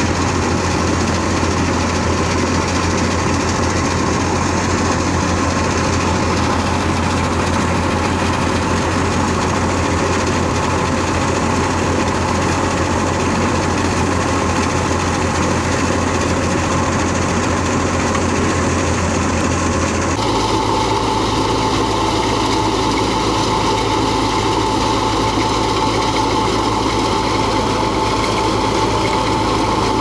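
Wheat thresher and the tractor driving it, running steadily at working speed: a loud, constant mechanical drone. Its tone changes suddenly about two-thirds of the way through.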